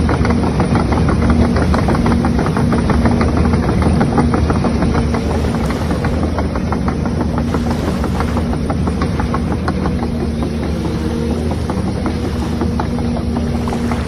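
Radio-controlled model construction machines, a tracked bulldozer and an excavator, running steadily: a continuous mechanical drone with a fast, dense rattling clatter.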